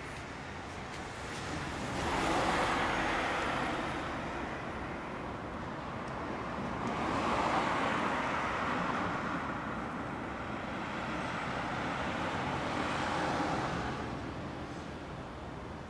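Road traffic passing on the street, three vehicles in turn, each swelling and fading over a couple of seconds, over a steady background hum.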